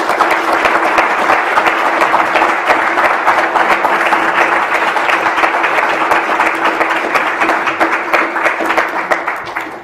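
Audience applauding, a dense steady patter of many hands that fades away near the end, with a faint steady tone underneath.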